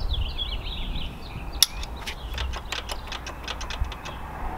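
Ratcheting wrench clicking as it tightens the 10 mm bolt on a motorcycle's shift linkage clamp. It is a quick run of clicks, about six a second, starting about a second and a half in and stopping near the end.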